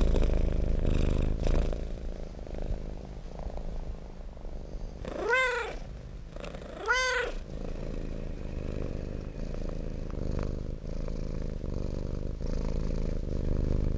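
A domestic cat purring steadily, with two short meows, rising then falling in pitch, about five and seven seconds in.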